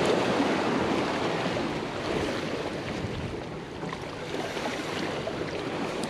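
Steady rushing of choppy sea water with wind on the microphone, a little louder in the first couple of seconds.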